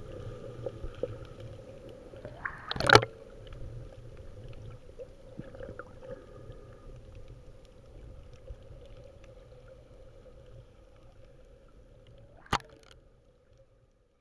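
Muffled underwater water noise picked up by a submerged camera while snorkeling: a steady low rumble with a faint steady hum. About three seconds in there is a loud rushing burst that swells and cuts off. A single sharp click comes near the end, before the sound fades out.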